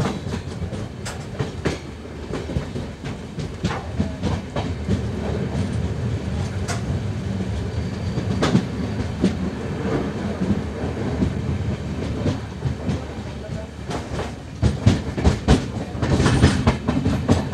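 Passenger express coach running at speed: a steady rumble with the clickety-clack of wheels over rail joints, heard from the coach's open doorway. A louder spell of clatter comes near the end.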